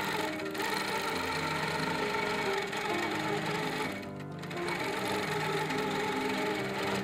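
Quilting machine stitching steadily, its needle running fast, with background music over it; the sound dips briefly about four seconds in.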